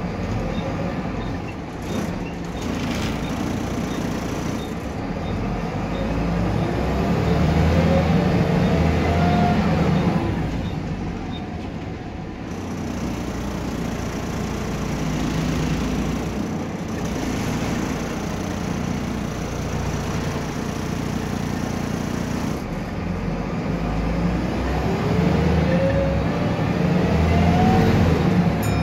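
Volvo B7RLE bus's diesel engine and driveline heard from inside the passenger saloon, accelerating twice with a rising whine each time, then easing off; loudest around the tenth second and near the end.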